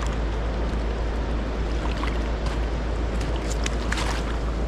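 Steady wind rumble on the microphone over the wash of river water, with a few light clicks.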